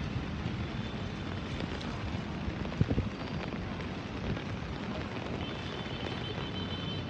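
Steady rushing noise of wind buffeting the phone's microphone over the swollen, fast-flowing floodwater of a flooded river, with a few short bumps about three seconds in.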